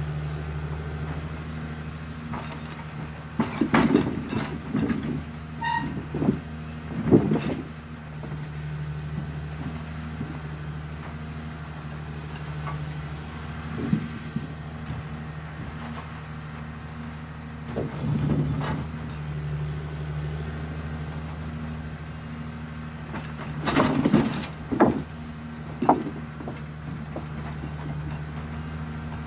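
A forwarder's diesel engine runs steadily while its hydraulic crane loads logs. Several bursts of wooden knocking and clattering come as logs land in the load bunk, loudest a quarter of the way in and again near the end.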